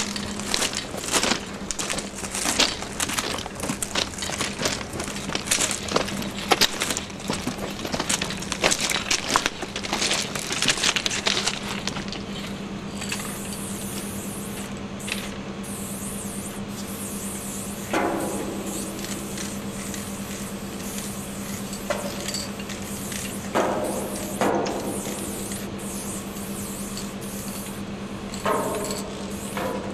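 Footsteps crunching on gravel track ballast for about the first twelve seconds. Then an aerosol spray-paint can hisses in short, repeated bursts while a tag is painted, with a few louder knocks or rattles between bursts.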